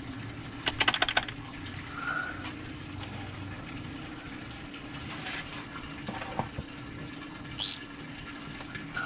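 Hand tools working a nut on a Jeep's transfer case shift bracket: scattered metallic clicks, with a quick run of ratchet-like clicks about a second in, over a steady low hum.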